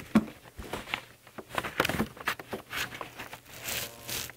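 Irregular small clicks and taps as a hot glue gun is worked against a 3D-printed plastic goggle frame on a tabletop, with soft handling noise.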